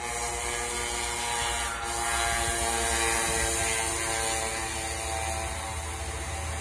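An engine droning steadily, with a deep low rumble under it and a high hiss, growing a little louder about two seconds in.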